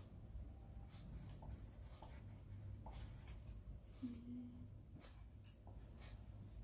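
Faint scratching of a pencil on paper, in short irregular strokes, as a list is handwritten. A brief low tone sounds about four seconds in.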